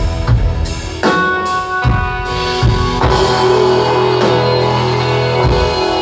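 Live rock band playing: electric guitars holding sustained, ringing chords over a drum kit, with bass-drum hits and cymbal crashes about one and two seconds in.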